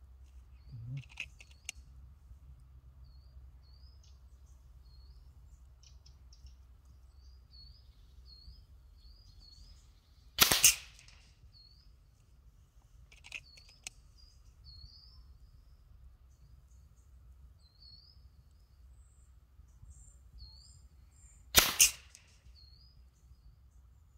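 Two shots from an FX Impact PCP air rifle firing slugs, about eleven seconds apart, the second a close double crack. Between them come a few faint clicks and a small bird chirping over and over.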